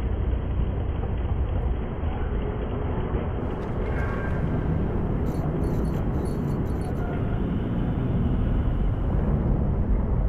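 Steady, muffled low rumble of a running escalator's machinery.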